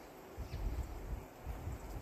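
Outdoor ambience with low, uneven rumbling gusts, likely wind on the microphone, starting about half a second in.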